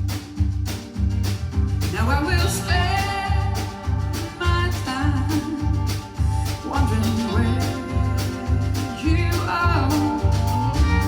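Country rock band playing live, with drums keeping a steady beat under bass and guitar. A lead vocal comes in about two seconds in.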